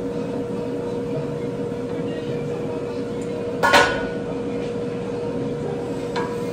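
A single sharp clank of cookware, a pot or utensil knocked on metal, a little over halfway through, ringing briefly. Under it runs a steady kitchen hum with a constant tone, and there is a fainter knock near the end.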